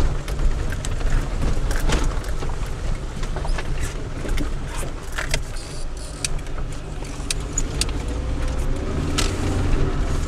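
Car driving slowly over a rutted dirt track, heard from inside the cabin: a steady low engine and road rumble with frequent rattles and knocks from the body and loose items as it bumps along. The engine note rises a little near the end.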